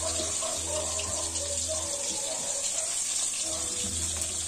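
Meat sizzling steadily in oil in a wok over a wood fire, an even hiss.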